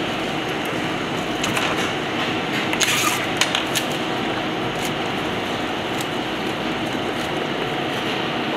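Plastic cling film crinkling in short bursts as it is wrapped and twisted tight around a roll, over a steady rushing background noise.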